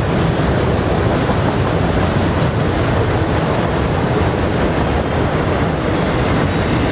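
Freight train of intermodal stack and autorack cars rolling past, with steady wheel-on-rail noise at an even loudness throughout.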